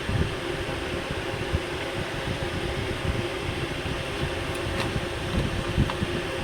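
A steady machine hum, like a fan or air conditioner, with an irregular low rumble underneath and a few faint clicks.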